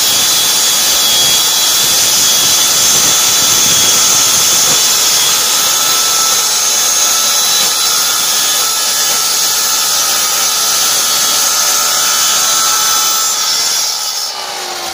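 Parkside handheld circular saw running steadily as it cuts through a sheet of board. Near the end the motor winds down, its pitch falling.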